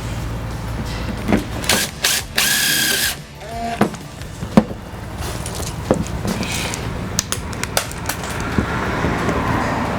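A cordless drill/driver runs in short bursts, driving screws through a door liner panel into the van's sliding door, with knocks and taps of the panel being handled between them.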